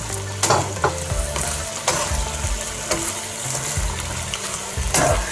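Chicken and mixed vegetables sizzling in a hot non-stick pan while being stirred and tossed with a wooden spatula, the spatula scraping the pan now and then over the steady sizzle.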